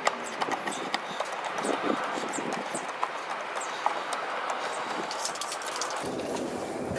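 Irregular light clicks and knocks from hands handling plastic trim and a wiring connector, over a steady background hiss. The background changes abruptly about six seconds in.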